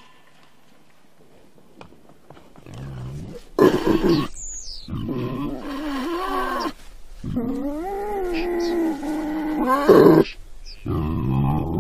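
Wild boar calling: a short low grunt about two and a half seconds in, then a string of long, wavering, pitched squealing calls, the longest lasting more than two seconds.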